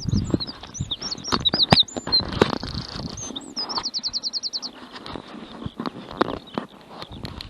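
A small songbird singing quick chirps and sweeping whistled notes, then a fast even trill of about ten notes, with the song stopping a little past halfway. Scattered short knocks and crunches run underneath.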